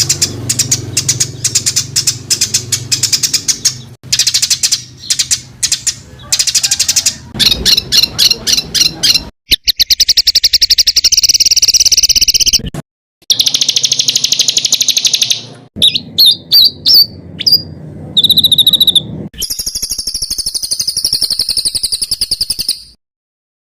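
Songbird calls in dense, rapid-fire trains of harsh, high-pitched notes, the close, rough 'shot' calls used as training audio for cage songbirds. The phrases are cut together, stopping and starting abruptly.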